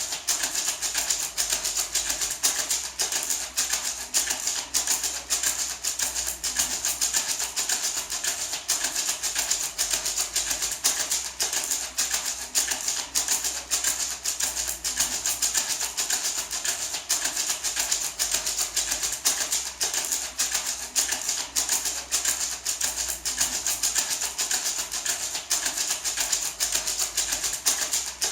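Handmade dried-gourd maraca shaken steadily and rhythmically, its seeds rattling in a continuous, even stream of quick shakes.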